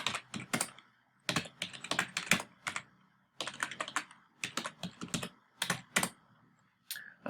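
Computer keyboard being typed on: quick runs of keystrokes in four bursts, with short pauses between them.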